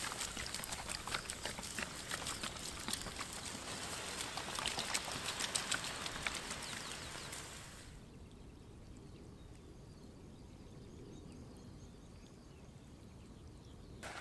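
Water poured from a plastic bottle onto hot campfire embers and ash, hissing and crackling with many small pops as the fire is put out. It stops about eight seconds in, leaving only a faint steady outdoor background.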